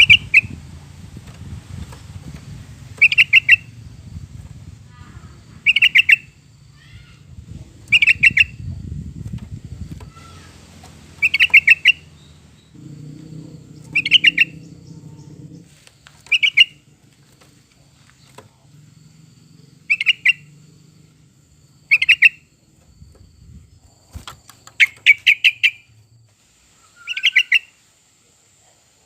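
Yellow-vented bulbul (trucukan) singing: short, bubbly phrases of quick repeated notes, about eleven of them, each given every two to three seconds.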